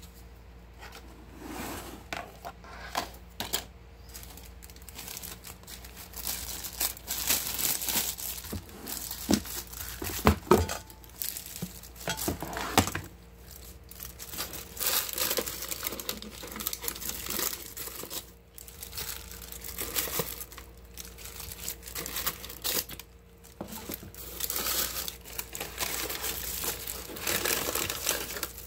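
Paper chicken wrappers and a disposable plastic glove crinkling and rustling as leftover fried chicken is handled. About a third of the way in comes a cluster of sharp clicks and knocks as a glass storage dish and its clip-lock plastic lid are handled.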